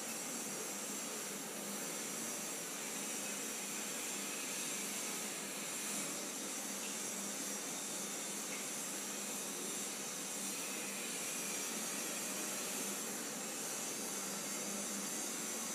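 Urad dal and chana dal sizzling steadily in hot oil in a kadai as they fry toward a reddish brown.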